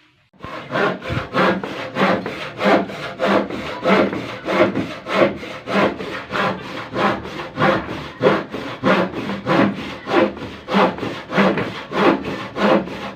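Hand saw cutting through wood in quick, even back-and-forth strokes, starting about half a second in.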